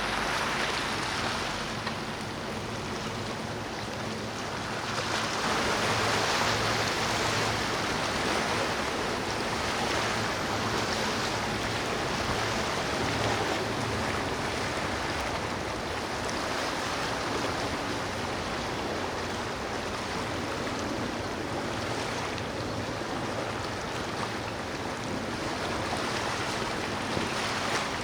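Steady rush of waves and churned water with a low engine drone underneath from a motor yacht running through the water, swelling a little about five seconds in.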